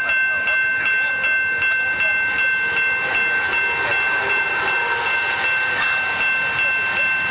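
A railway bell ringing steadily, about two and a half strikes a second, over a steady hiss beside an Amtrak Superliner passenger train.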